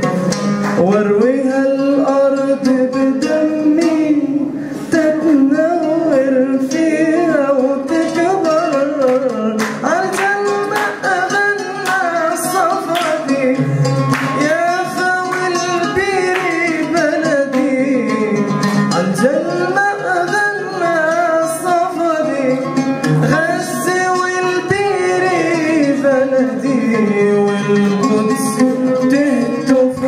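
A man singing an Arabic song, his voice sliding and bending between notes, accompanied by a plucked oud.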